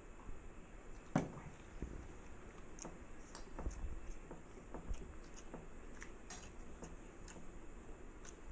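Faint eating sounds: fingers mixing and scooping chicken fried rice on steel plates, with scattered small clicks and taps and one louder knock about a second in.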